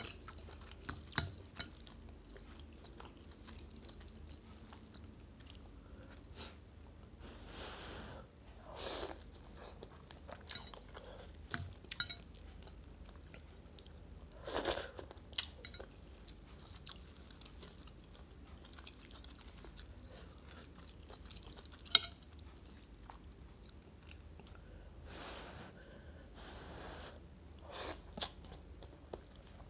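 Close-miked eating of rice vermicelli soup with shredded chicken: chewing with scattered small clicks and a few short, louder noisy mouthfuls. A single sharp click about two-thirds of the way through is the loudest sound.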